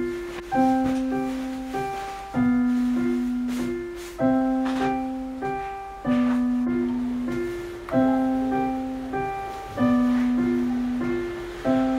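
Solo piano background music: a gentle, repeating figure in which a low note is struck about every two seconds and fades, with higher notes in between.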